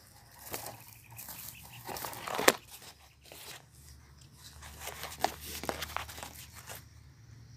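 Footsteps crunching through dry leaves and twigs, with irregular crackling and a sharp snap about two and a half seconds in.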